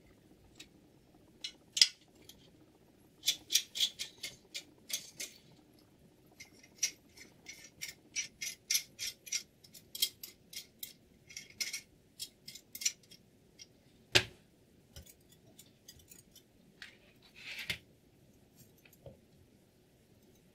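Small hard parts being handled: an irregular run of sharp clicks and short, high scraping strokes, with one louder knock about fourteen seconds in.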